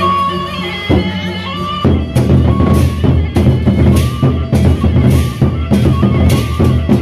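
A Lombok gendang beleq ensemble playing. For about the first two seconds a held suling melody sounds over a low drone. Then the large barrel drums come in with fast, dense beating, joined by bright cymbal-like clashes.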